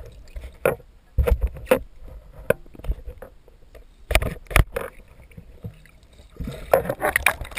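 Irregular muffled knocks, bumps and clicks heard underwater through a submerged camera, with a low rumble of water beneath; the loudest knocks come in bunches about a second in, around four seconds in and near the end.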